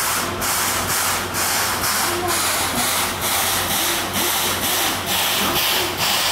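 C11 123 steam tank locomotive working its train slowly, chuffing in an even beat of about three exhaust beats a second.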